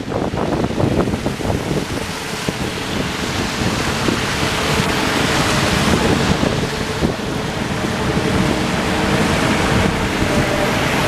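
City traffic on a snow-covered street: a steady rush of passing cars, with wind on the microphone. A faint steady hum joins in about halfway through.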